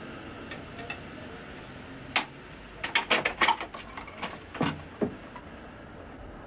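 Door lock and handle clicking and rattling as a key works the lock and the door is unlatched: a single click about two seconds in, then a quick cluster of clicks and a few more over the next two seconds, over steady film hiss.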